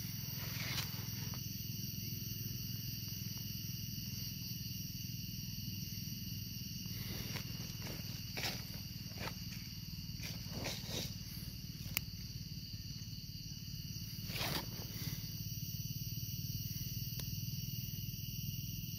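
A steady low rumble with a high, steady insect drone above it. A few brief rustles and scrapes come through in the middle, one sharp click about twelve seconds in.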